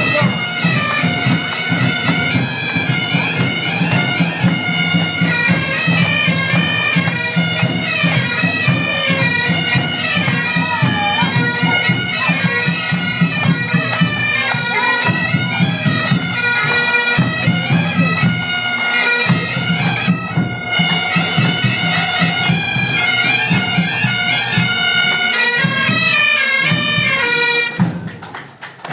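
A pipe band of several bagpipes playing a tune in unison over their steady drone, loud and continuous. The melody breaks off briefly about two-thirds of the way through, and the playing stops near the end.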